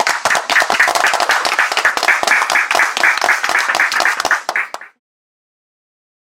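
Audience clapping, many individual claps heard distinctly, cutting off about five seconds in.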